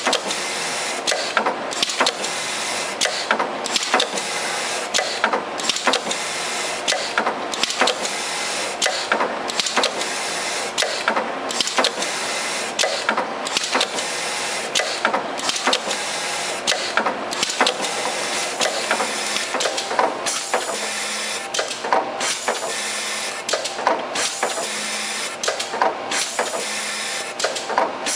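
Automatic syringe labeling machine running: a steady mechanical whir with constant clicking and clatter as syringes are fed through and rolled past the labeling rollers. Brief dips in the noise come roughly every two seconds.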